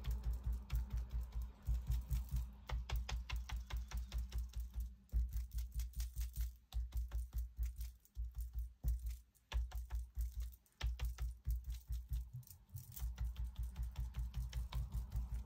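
Rapid tapping of an ink-loaded applicator onto paper on a tabletop, several soft thumps and clicks a second, broken by a few short pauses.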